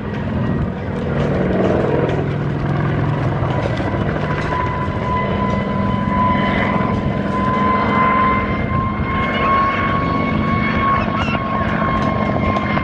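Kamov Ka-26 coaxial-rotor helicopter flying a display pass, its twin radial piston engines and rotor chop running steadily and loud. A high tone runs through it, rising slightly in pitch as the helicopter comes closer.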